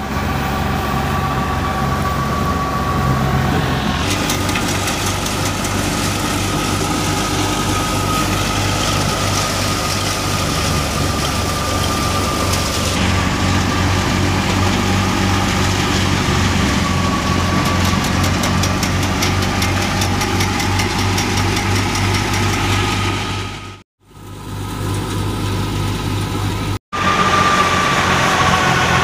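A diesel tractor engine, a Massey Ferguson 385, runs steadily under load as it drives a wheat thresher, with a steady high whine from the spinning thresher and the rushing noise of straw being fed and threshed. The sound cuts out briefly twice near the end.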